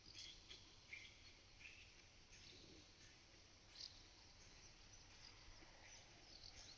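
Faint pasture ambience with scattered short, high chirps of small songbirds, a few seconds apart.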